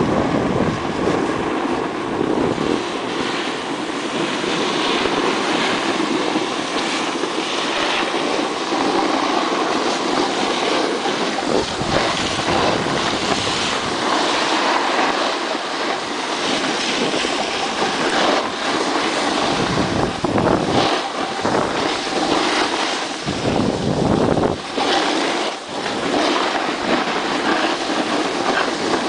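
Continuous hiss and scrape of snow under a moving rider on a groomed slope, with wind buffeting the microphone in low rumbling gusts a few times in the second half.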